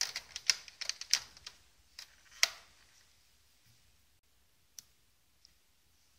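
Keys on a Casio FX-730P pocket computer being pressed, a quick run of about a dozen clicks over the first two and a half seconds, then two single key clicks near the end.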